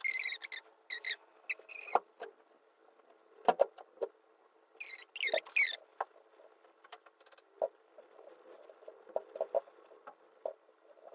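Several bursts of high, squeaky chirps, at the start and again around five seconds in, amid scattered light taps and knocks of small items being set down on a stone countertop.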